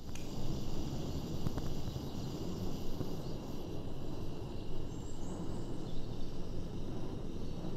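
Gasoline burner of a 1938 Tito Landi cooking stove running lit, a steady rushing noise.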